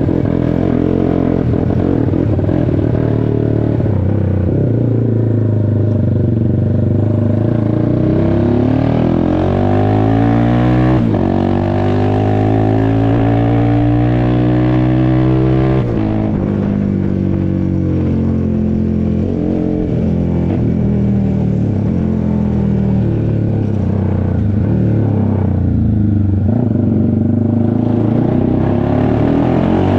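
Honda CBX 250 Twister's single-cylinder four-stroke engine, fitted with a 79 mm piston kit and a tuned exhaust, running loud, its revs rising and falling again and again with a deep exhaust rumble.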